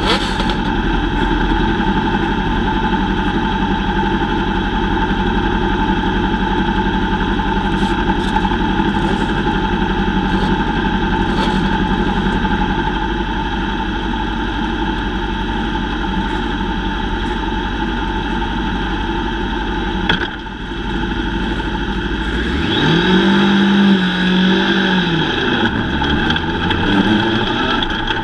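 Lightning sprint car engines running together in a steady drone. Near the end one engine close by revs up, holds, then eases off and picks up again.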